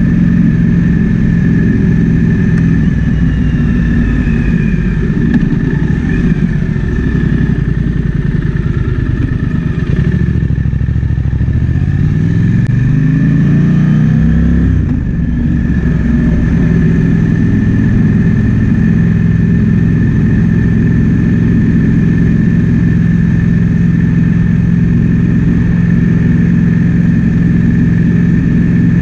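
Triumph Speed Twin 1200's parallel-twin engine running at a steady cruise under wind noise. About a third of the way in the engine note drops, then rises in a smooth sweep as the bike accelerates. There is a brief dip near the top of the sweep before it settles back to a steady note.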